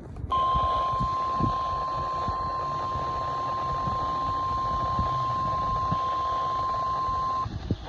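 NOAA Weather Radio warning alarm tone: a single steady high tone of about 1050 Hz held for about seven seconds over a hiss, cutting off suddenly. It signals that a warning broadcast, here a snow squall warning, is about to be read.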